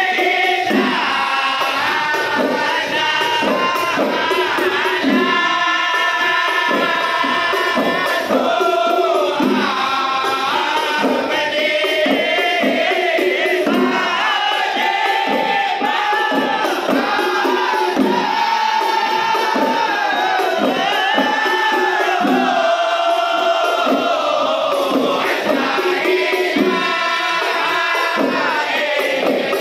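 A group of men singing together to the beat of hand-struck rebana frame drums, a Malay rebana ensemble performing live.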